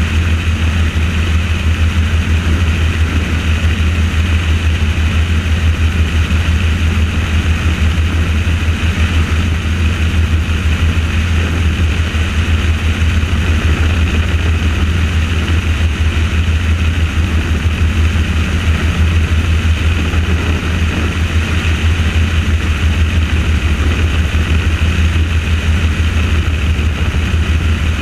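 Helicopter in flight, its rotor and engine running steadily, with a fast low beat from the rotor blades under a constant higher whine.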